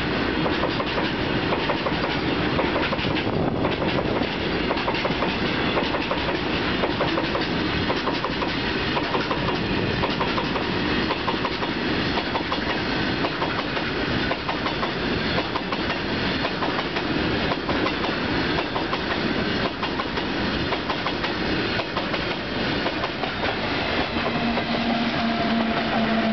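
Loaded railway tank wagons rolling past, their wheels clicking and clattering over the rail joints with a steady rumble. About 24 s in, a steady hum joins as the WAG7 electric banking locomotives pushing at the rear come alongside.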